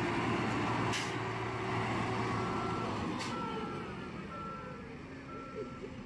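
A reversing alarm on road-construction machinery beeping about once a second, over the steady running of the asphalt paver and feeder engines, which fade gradually.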